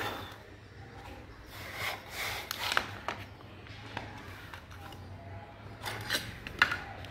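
Hands working a sand-casting mould: light scraping and rubbing of sand on the board and flask, with a few sharp clicks, one about three seconds in and two near the end.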